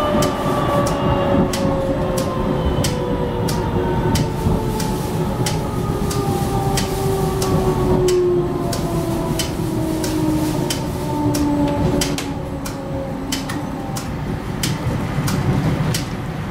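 Inside a Düwag GT-D8 articulated tram on the move: a low running rumble with a drive whine that falls slowly and steadily in pitch, and frequent sharp clicks from the wheels on the rails.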